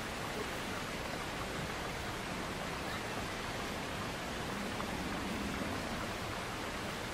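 River water rushing steadily, an even unbroken hiss of flowing water.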